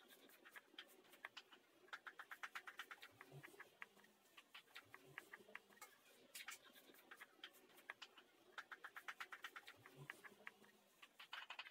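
Cleaver slicing cooked meat on a chopping board, the blade tapping the board in quick runs of light clicks with single taps between.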